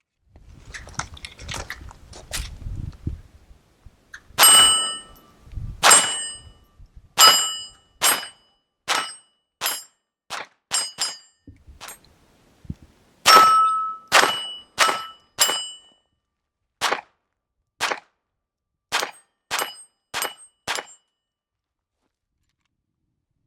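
Tactical Solutions PacLite .22 LR pistol fired unsuppressed: about twenty sharp shots in quick strings with short pauses, most followed by a brief metallic ring like steel being hit. Soft handling rustle comes before the first shot.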